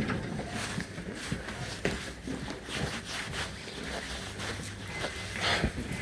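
Low, steady rumble inside a moving train carriage, with scattered rustles and light knocks close by.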